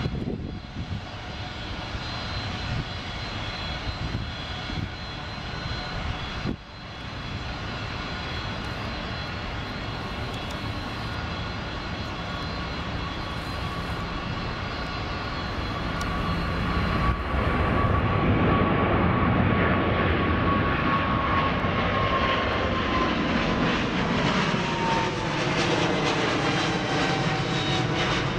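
Boeing 777-200LR's twin GE90 turbofan engines at takeoff thrust, from the run down the runway through lift-off and climb-out overhead. The sound grows louder a little past halfway. A steady fan whine then falls in pitch as the jet passes overhead.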